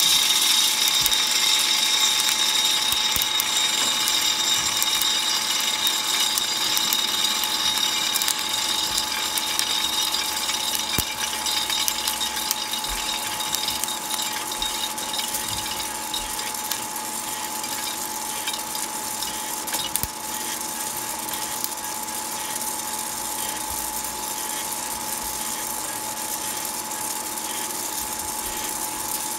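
Freshly roasted coffee beans pouring from a roaster into its perforated cooling tray and rattling as the tray's stirring arm sweeps them round, over a steady motor hum. The rattle is heaviest in the first dozen seconds as the beans fall in, then settles to a steady churn.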